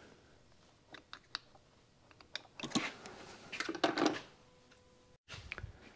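Light clicks and clatter of small tools and metal parts being handled on a workbench: a few sharp ticks about a second in, then a busier stretch of handling between about three and four seconds.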